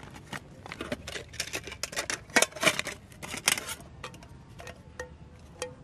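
Metal camping cookware handled by hand: a quick run of clicks and rattles as the nested pot and lid come out of their bag, then a few separate metal clinks that ring briefly as the pan and its folding wire handles are handled.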